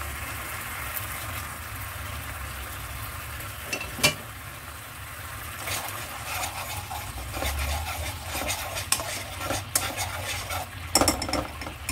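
Tomato-soy sauce simmering and sizzling in a nonstick wok, with a single sharp tap about four seconds in. From about halfway a plastic spoon stirs and scrapes through the sauce against the pan, with a few sharp clicks near the end.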